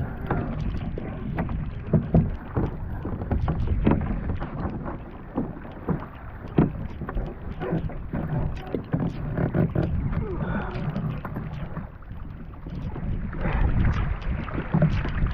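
Water sloshing and splashing against a fishing kayak's hull, with scattered knocks and wind buffeting the microphone.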